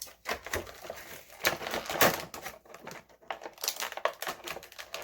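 Plastic action-figure packaging crinkling and crackling, with irregular sharp clicks, as the figure and its accessories are handled and taken out.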